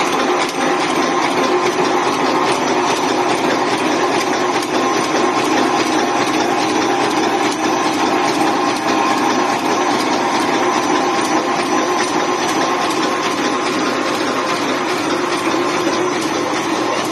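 Automatic welded wire mesh roll machine running steadily: a loud, continuous mechanical noise with rapid repeated clicking from its welding and feed mechanism.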